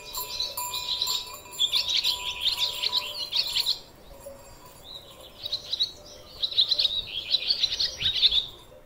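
Small birds chirping and chattering rapidly in two long bouts, with a short break about four seconds in.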